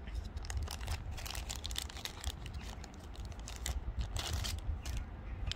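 Thin clear plastic bag crinkling in a run of short crackles as a spare sunglasses lens is handled and unwrapped from it.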